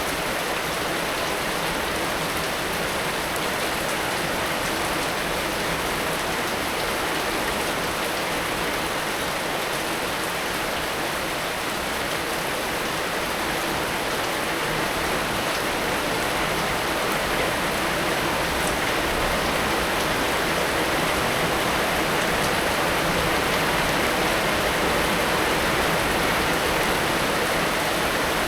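Heavy rain falling steadily, a dense even hiss of drops on surfaces, getting slightly louder toward the end.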